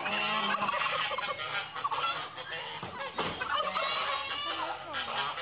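Several domestic geese honking over one another, the calls dense and overlapping, as they fight a turkey.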